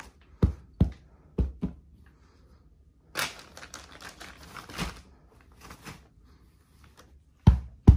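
Plastic packaging from a bed-in-a-box mattress being handled: a few sharp knocks, then a couple of seconds of crinkling and rustling. Loud, evenly spaced thumps begin near the end.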